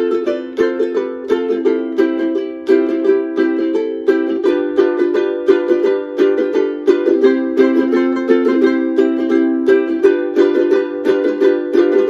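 Three ukuleles playing an ensemble arrangement together: a picked melody over ukulele chord accompaniment in a steady, bouncy rhythm, moving through F, C and G7 chords. No singing.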